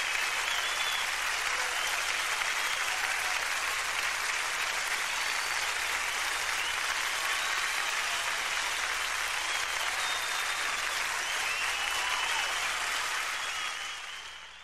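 Large concert audience applauding steadily, with occasional whistles, then fading out near the end.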